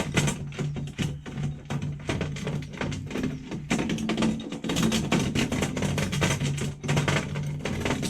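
Background music with a drum beat and a steady low bass line.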